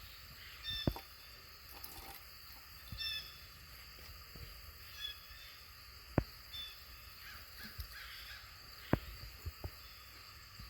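Occasional sharp knocks, three of them loud, from a freshly bled Freedom Ranger rooster jerking in a killing cone as its nerves fire after the cut. Short caw-like bird calls sound faintly in the background.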